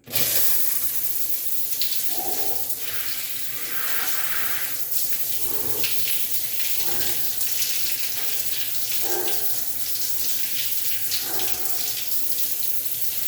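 Water running steadily, with uneven splashing.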